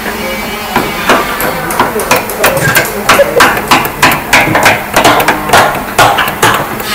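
Hand tools knocking on a wooden chair frame as a joint is chiselled apart: sharp, irregular taps about two or three a second.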